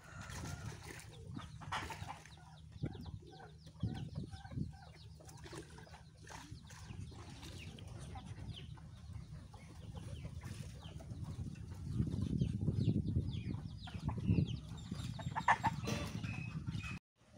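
A yard of free-range chickens clucking, with short scattered calls throughout. A low rumbling noise swells about twelve seconds in.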